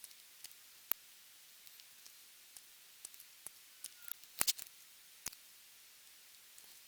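Scattered small, sharp clicks and ticks of hard plastic model-kit parts and tools being handled, with a quick cluster of clicks about four and a half seconds in.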